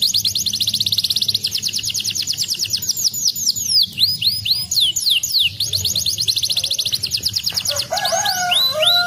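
Domestic canary singing: fast rolling trills of rapidly repeated high notes, alternating with phrases of slower downward-sweeping notes. Near the end the song drops to lower, steadier whistled notes.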